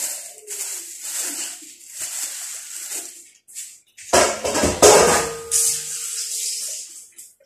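Kitchen handling noises while raw meat is being prepared: light rustling and scraping, then a louder clatter about four seconds in, followed by a faint ringing tone for a couple of seconds.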